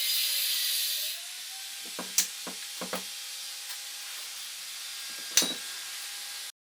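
Air hissing steadily, loud at first and dropping to a softer hiss about a second in, with a faint whistle that rises in pitch and then holds. A few sharp knocks come about two to three seconds in, with one more past five seconds, before the sound cuts off suddenly.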